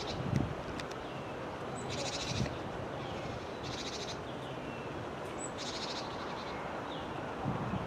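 Small wild songbird giving short, buzzy, rapidly trilled chirps, three in all about a second and a half to two seconds apart, with fainter short down-slurred notes between them, over a steady hiss and a few low bumps.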